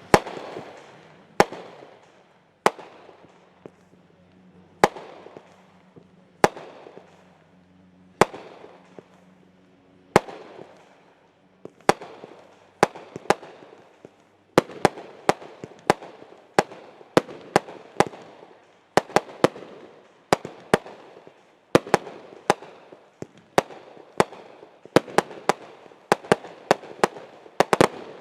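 Consumer fireworks going off, sharp bangs each followed by a fading echo. They come singly every second or two at first, then in quick, dense runs from about halfway through.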